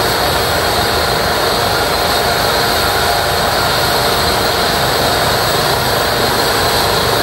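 Twin-turbine Eurocopter EC135 helicopter running on the ground at close range with its rotors turning: a steady, loud turbine whine over the rotor noise, with rotor wash buffeting the microphone.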